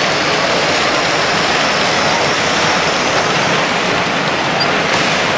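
Steady hubbub of a busy exhibition hall, with many voices blended into one even noise, as a model electric train runs past on its track.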